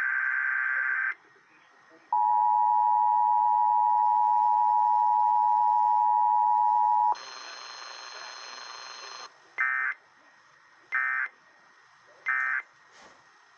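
Emergency Alert System test signal coming off a radio receiver. The last of the warbling SAME data bursts is followed by the two-tone attention signal, held steady for about five seconds, and then a couple of seconds of hiss. It ends with three short end-of-message data bursts, about a second and a half apart.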